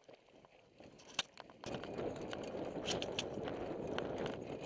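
Mountain bike rolling down a rocky dirt trail: scattered clicks and rattles from the bike, then about two seconds in a steady rushing noise of wind and tyres on dirt sets in, with more knocks and rattles over it.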